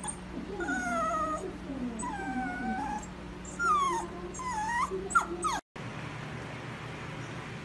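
Chow Chow puppy whining: a string of high, wavering whimpers that rise and fall, ending in a few quick falling yelps. It cuts off abruptly and a steady hiss follows.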